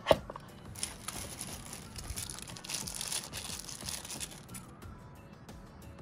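A sharp tap at the start, then the thin plastic wrapper of a GoPro battery crinkling and tearing as it is handled and opened, from about a second in until shortly before the end.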